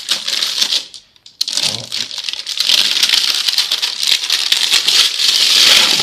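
Clear plastic wrap crinkling and crackling as it is peeled off a plastic appliance body, with a short break about a second in.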